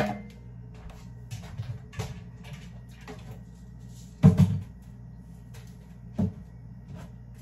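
Kitchen cabinet opened and spice bottles taken off the shelf and set down on the countertop: a loud knock about four seconds in, a sharper one about six seconds in, with light clicks and rattles between.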